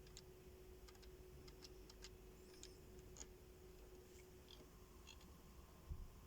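Near silence: room tone with a faint steady hum, a few scattered faint clicks and a soft low thud near the end.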